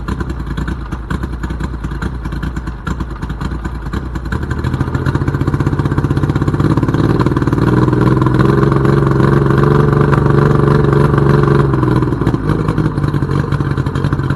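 Outboard motor running, its speed rising about four seconds in, held higher for several seconds, then dropping back near the end.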